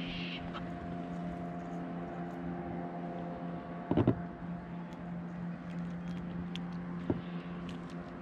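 A steady engine hum runs throughout. A brief knocking clatter comes about four seconds in and a single sharp click about seven seconds in, as a small fish is handled and unhooked over a plastic kayak.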